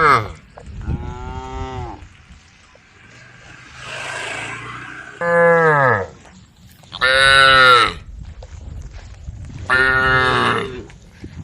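Cattle mooing: a series of loud, drawn-out moos, about four in all, each falling in pitch at the end, spaced a second or two apart as the cows call to the herd.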